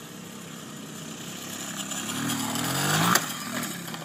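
Small dirt bike engine revving up as the bike speeds across a yard, its pitch rising and getting louder. About three seconds in comes a sudden crash as the bike goes down, and the engine note drops back.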